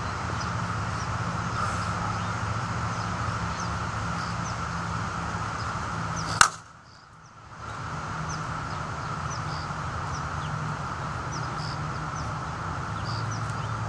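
A slowpitch softball bat hitting a 52/300 softball once, about six seconds in: a single sharp crack of bat-on-ball contact. A steady low hum runs underneath.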